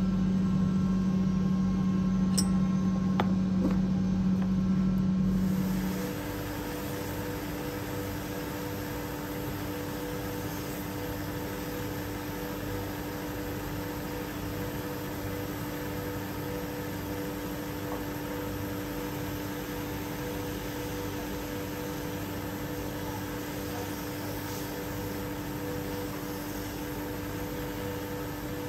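A belt sander running steadily, a low machine hum with a noisy sanding hiss, as the rim of a bent cedar-wood cup is held against the belt. It opens with a louder steady low hum and a few light clicks that cut off about five seconds in.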